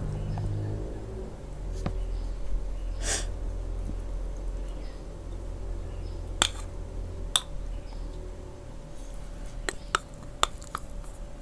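Close-miked mukbang eating of instant noodles: one short slurp about three seconds in, then a handful of sharp clicks and smacks from chopsticks and mouth over a steady low hum.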